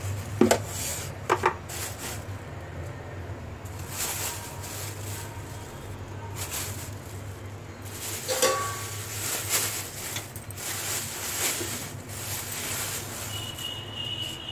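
Plastic containers and a thin plastic bag of chopped greens being handled: two sharp knocks in the first second and a half, then crinkling and rustling of the bag, over a steady low hum.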